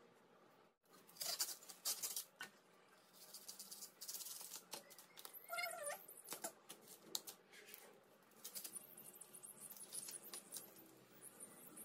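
Fresh banana stem being peeled and split apart by hand: crisp crackling and tearing of the juicy, fibrous sheaths, coming in bursts. There is a brief wavering squeak about halfway through.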